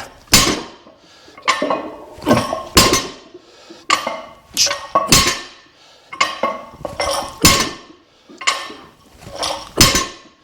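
Barbell and weight plates clanking: a string of sharp metallic clinks with a short ring, about one a second, some coming in quick pairs.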